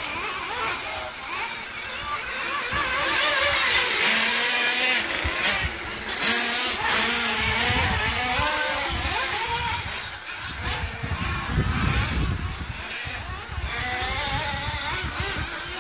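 Radio-controlled model cars running on a dirt track, their small engines whining and revving so the pitch keeps rising and falling.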